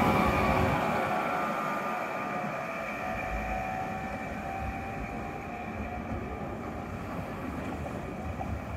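Tatra KT4D tram moving off along the street rails, its running noise with a steady whine fading gradually as it draws away.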